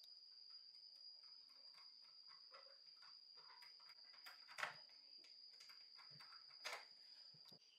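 Small screwdriver turning a screw into the plastic grille cover of a Homelite chainsaw: faint scraping clicks, with two sharper clicks in the second half, over a steady high-pitched whine.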